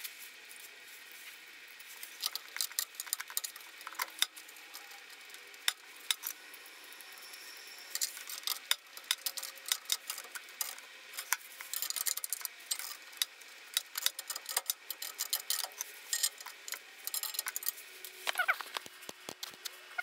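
Small metal parts being handled inside a gas furnace's burner compartment: irregular light clicks and clinks, coming more thickly from about halfway through.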